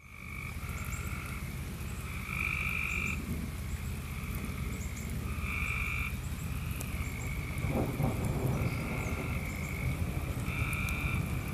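Frogs calling: repeated pitched calls, each about half a second to a second long, come one every second or two from several callers, over a steady low rumble.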